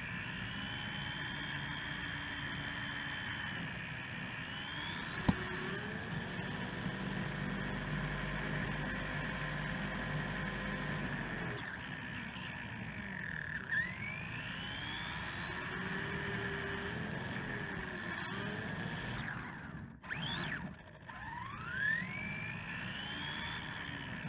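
Electric drive motor of a Helion Animus 18SC short-course RC truck whining, its pitch rising and falling with the throttle, over a steady hiss of tyres on pavement. A sharp knock comes about five seconds in.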